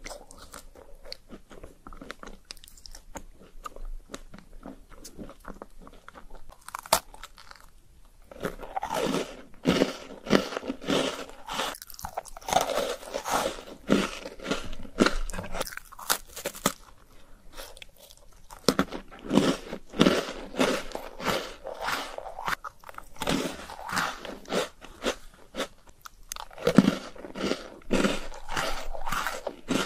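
Close-miked eating of a crisp chocolate-shelled ice cream bar: soft bites and chewing at first, then dense, crisp crunching and chewing from about eight seconds in.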